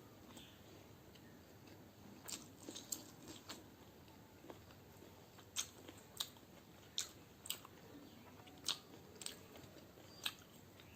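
A person chewing egg biryani, with about a dozen short, crisp crunching bites at irregular intervals.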